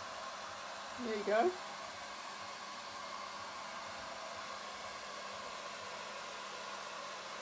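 Steady whirring hiss of a small fan, with a faint steady tone in it. About a second in there is one brief voice-like sound that rises in pitch.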